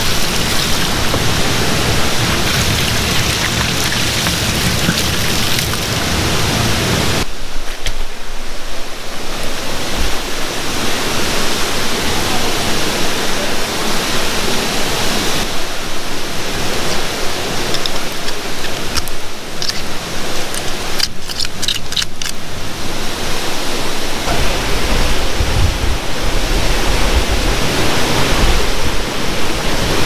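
Steady rushing water of a waterfall and creek, shifting in tone a few times. About two-thirds of the way through comes a quick run of sharp scraping clicks from a metal tool working cracks in wet bedrock. Near the end a low rumble of wind on the microphone joins in.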